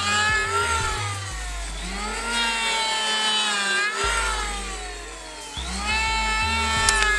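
Electric hand planer with a carbide-tipped (TCT) blade planing a hard ulin ironwood board in repeated passes. The motor's whine drops in pitch as each pass bites into the wood and rises again between passes. The cut pulls light on the machine.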